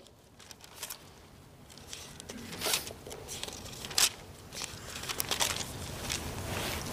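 Thin Bible pages rustling and flicking as many people in a congregation turn to a passage. The flicks are scattered at first and grow busier after about two seconds.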